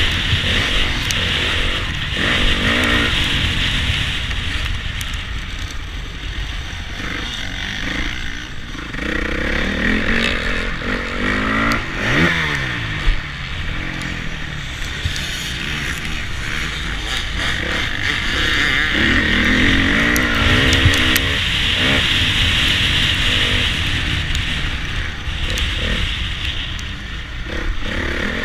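Honda CRF450 motocross bike's single-cylinder four-stroke engine, heard from on the bike as it rides a dirt track, the revs rising and falling over and over as the rider accelerates and backs off.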